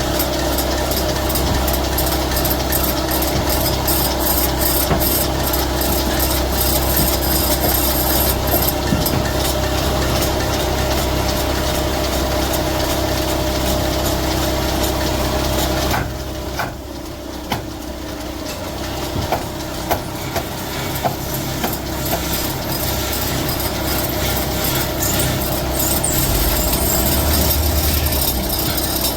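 A woodworking machine running steadily with a constant motor hum. About halfway through it drops in level, and scattered sharp clicks and knocks follow.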